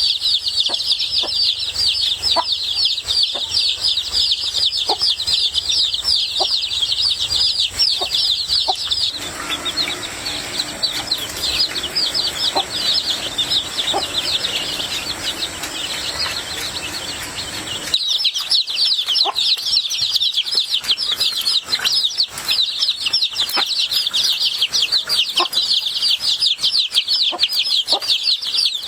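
A crowd of poultry chicks peeping continuously in rapid, high, overlapping chirps. The background beneath changes about nine and eighteen seconds in, with a low rumble in the middle stretch.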